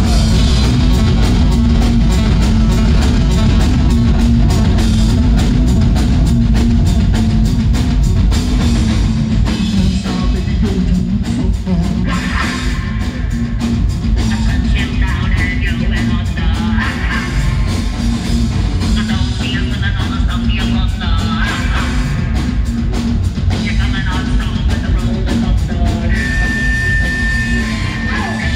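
A rock band playing loud through a theater PA, heard from within the crowd: two drum kits hammering a fast beat under electric guitar and bass. A voice sings over it from about halfway, and a steady high tone is held near the end.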